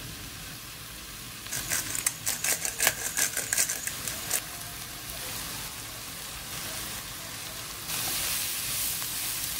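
Diced onion and carrot frying in butter in a pan, sizzling. About one and a half seconds in, a quick clatter of clicks and scrapes lasts a few seconds as a spatula stirs the vegetables against the pan. The sizzling then goes on steadily and grows louder near the end.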